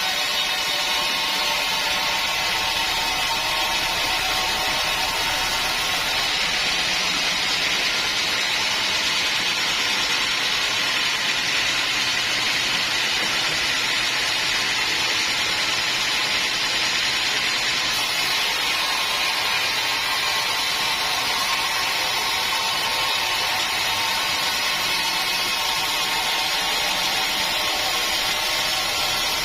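Sawmill saw running steadily through a teak log, a continuous high whine and hiss that holds at an even level.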